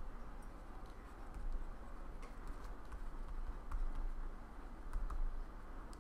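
Pen writing on a tablet: light scratching with scattered small taps and clicks, over a steady low electrical hum.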